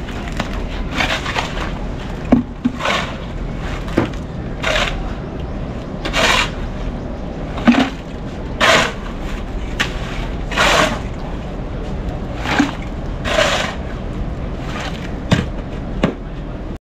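Shovel scraping through a heap of concrete mix as a worker hand-mixes it, a dozen or so quick rasping strokes about one every one and a half seconds.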